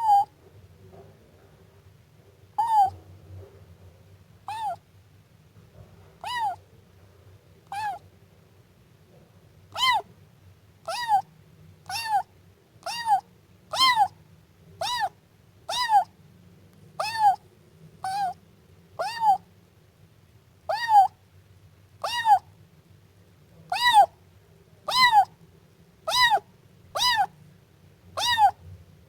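Siamese kitten meowing over and over: more than twenty short, high-pitched meows, each rising and falling in pitch. They come about every two seconds at first, then roughly once a second.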